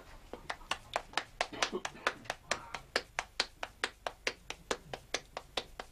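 Hands patting corn dough into tortillas: a quick, even run of slaps, about five a second, as the masa is flattened between the palms.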